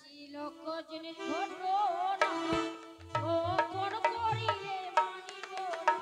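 Live folk-theatre accompaniment: a wavering melody over a held drone. Sharp percussion strikes come in about two seconds in, and low hand-drum strokes join about three seconds in.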